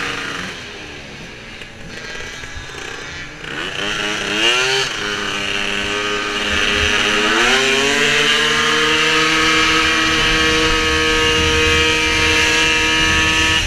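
Racing Piaggio SKR scooter's two-stroke engine on the track: the revs drop off, pick up briefly about four seconds in, then climb again near eight seconds and hold at a high, steady pitch.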